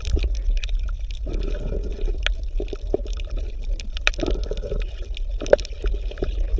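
Underwater ambience: water bubbling and gurgling, with many scattered small clicks over a steady low rumble.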